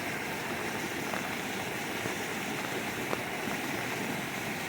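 Steady rush of storm-swollen floodwater after heavy rain, with a couple of faint ticks.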